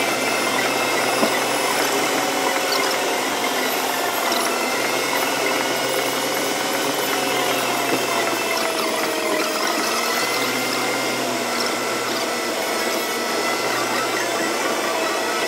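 Steady road and engine noise inside the cabin of a car driving at highway speed, with a thin whine that drifts slowly up and down in pitch.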